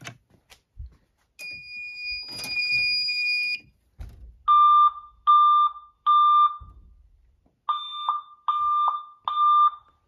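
Fire alarm system going into alarm: a steady high-pitched beep for about two seconds, then the Edwards speaker strobes sounding a temporal-three evacuation tone, two sets of three short tones with a pause between the sets.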